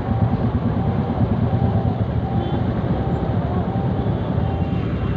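Steady low rumble of a vehicle's engine and road noise, heard from inside the moving vehicle in traffic. A faint short tone repeats a little more than once a second over it.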